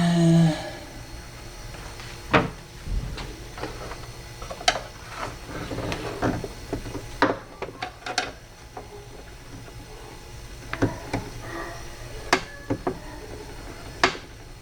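Scattered clicks, taps and knocks of a screwdriver pressing plastic clips into a car door's window regulator to seat them, opening with a brief pitched squeak.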